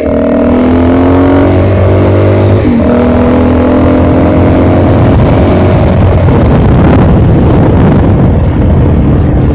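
An engine running and rising in pitch under acceleration, with a brief drop and recovery about three seconds in like a gear change, then buried in loud rough wind noise on the microphone.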